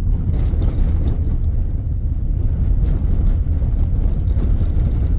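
Cab noise of a pickup truck on the move: a steady low rumble of engine and tyres, with light scattered rattles.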